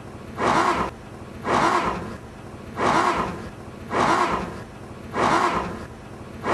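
Car engine cranking slowly on a nearly dead battery: the starter labours through about one slow turn a second, each a surge that fades, and the flooded engine does not catch.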